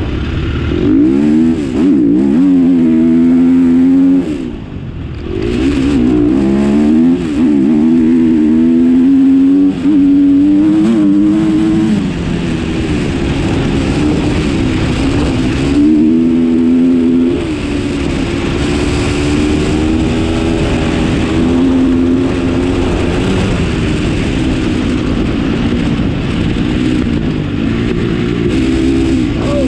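Vehicle engine under way, its pitch rising and falling again and again as it revs up and eases off.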